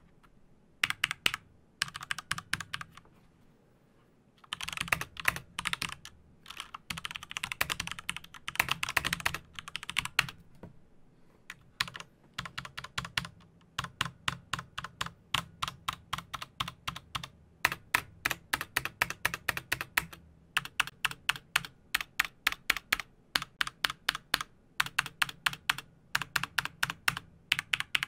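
Typing on a mechanical keyboard: fast runs of key clacks broken by brief pauses, the longest a second or so near the start.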